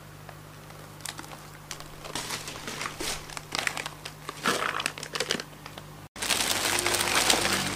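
Crinkling and rustling of a small plastic snack packet being handled and opened by hand, in scattered crackles at first, then denser and louder for the last second or two, over a faint steady low hum.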